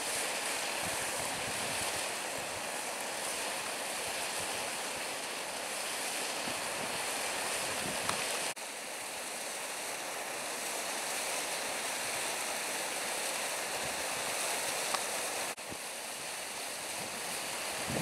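Creek water rushing over a small waterfall and rapids: a steady, even rush of falling water that drops out for an instant twice.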